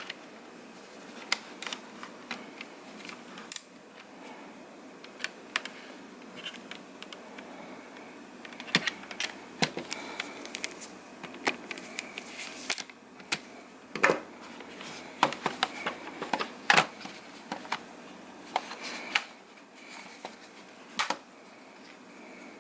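Plastic clips of a laptop's black plate snapping loose as it is pried up along the edge with a flathead screwdriver: irregular sharp clicks and small snaps, some coming in quick clusters.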